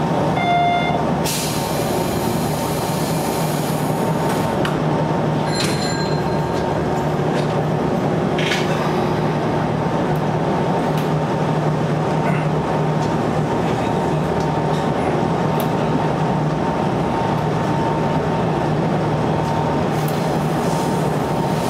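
Sanyo Electric Railway electric multiple unit running along the line: steady running noise with a continuous low hum, and a brief hiss about a second in.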